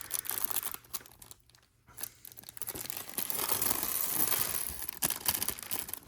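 Plastic LEGO parts bags crinkling and being torn open, with a short quiet pause about one and a half seconds in.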